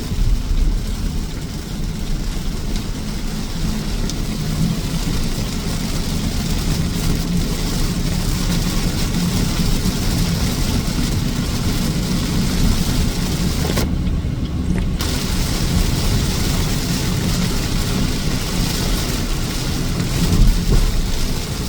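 Car driving: steady engine and road rumble, with the higher noise dropping out briefly about fourteen seconds in.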